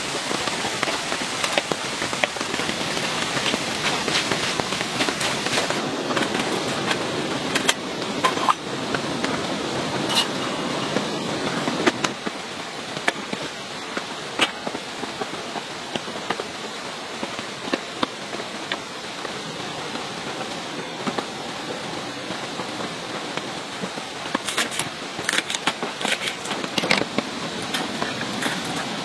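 Steady rain falling, with scattered sharp clicks and taps of a knife cutting food on a wooden chopping board. The rain eases slightly about midway.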